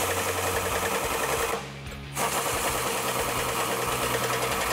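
Pneumatic impact wrench hammering nuts down onto studs in two runs, with a short pause about a second and a half in.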